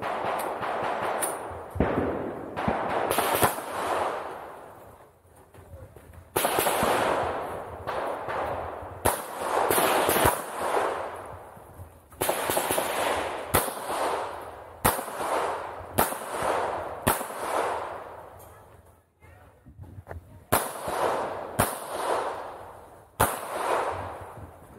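Pistol shots fired in quick pairs and short strings, with pauses of a second or two between groups, each shot followed by a rolling echo.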